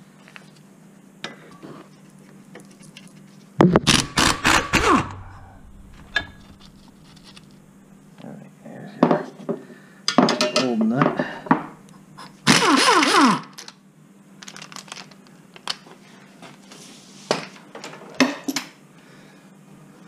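Air impact wrench hammering on the lower ball joint nut in several short bursts, the first and loudest about three and a half seconds in, its motor whine rising and falling in pitch. Light metal clinks and knocks from tools and parts come between the bursts.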